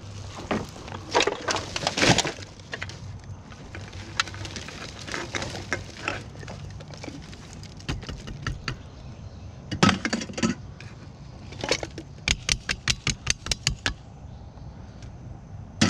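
Rummaging through a plastic recycling bin: a plastic trash bag crinkling and an aluminum can and cardboard boxes being handled, in scattered sharp clicks and crackles. About three-quarters of the way through comes a quick run of about ten sharp clicks.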